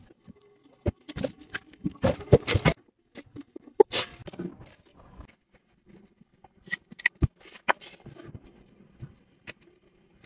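Irregular clicks and taps of handling: flip-flop steps on a tiled floor early on, then plastic safety glasses and a plastic bottle being picked up and handled on a table.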